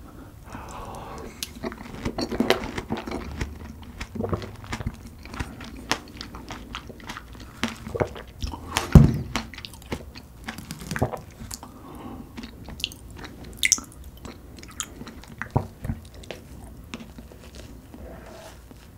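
Close-miked eating sounds: fresh strawberries with whipped cream being bitten and chewed, with wet, crunchy mouth sounds and small clicks throughout. There is one sharp knock about nine seconds in.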